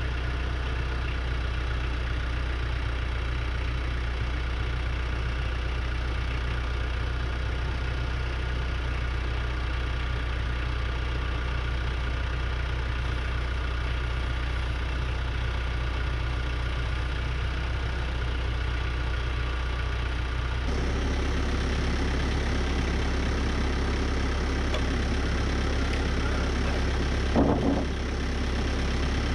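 TYM 574 tractor's diesel engine running steadily while the tractor moves a truss on its front-loader pallet forks. The engine note changes about twenty seconds in, and a brief louder noise comes near the end.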